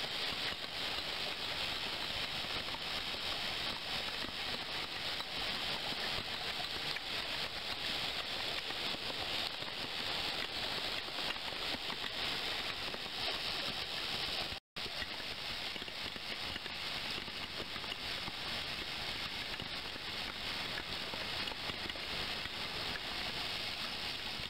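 Steady pouring and splashing of a stream of water falling from a stainless steel tray into a hanging bowl and spilling into a water-filled steel tank, as an even hiss. It drops out briefly about fifteen seconds in.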